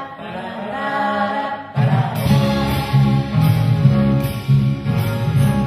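A live song starting: wordless singing of "ba da" syllables, then nearly two seconds in, strummed guitar and drums come in with a steady beat under the voice.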